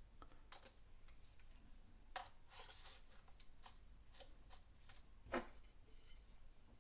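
Faint, scattered clicks and light taps of small metal precision bits and a plastic tool case being handled, with a brief scrape about two and a half seconds in and the sharpest tap a little after five seconds in.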